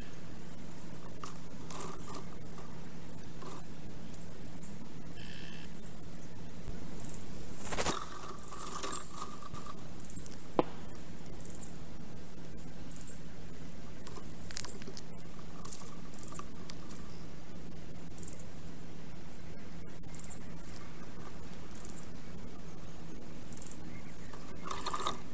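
Very high, squeaky chirps, each falling in pitch, repeating about once a second over a steady low hum: sped-up forest birdsong from the nest-cam microphone. The sound cuts off abruptly at the end.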